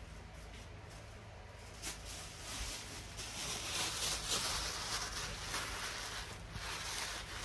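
Tissue paper rustling and crinkling as it is stuffed into a plush house slipper, starting about two seconds in.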